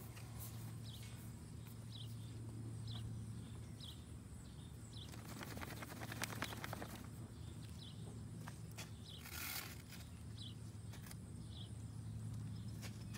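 A paint mare gives a rough, fluttering breath for about two seconds, starting about five seconds in, and a short blowing breath a few seconds later. A bird chirps over and over throughout, over a steady low hum.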